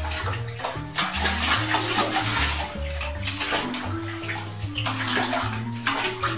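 Water splashing in a bathtub as a cat paddles and scrabbles at the tub's side trying to get out, over background music with a steady, stepping bass line.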